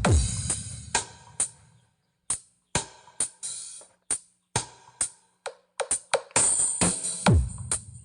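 Electronic dance music with drum-machine percussion played through a mobile sound system's subwoofers. A deep bass hit at the start dies away, sharp hits follow with short silences between them, and another heavy bass hit comes near the end.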